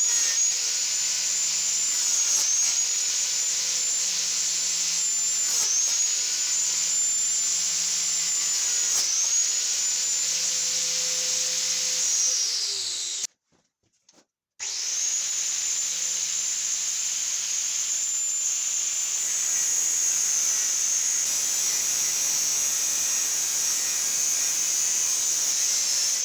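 Angle grinder running at speed with a high steady whine. Its pitch dips briefly three times as the disc is loaded. About halfway through the whine winds down and stops, then starts again about a second and a half later and runs steadily.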